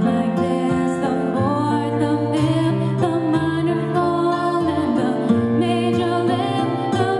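A young woman singing into a microphone with vibrato on held notes, accompanied by chords on a Korg electronic keyboard.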